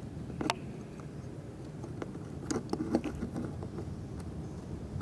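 A few small, scattered clicks and taps from multimeter test probes and leads being handled and pushed onto the pins of a sensor connector, over a low steady background hum.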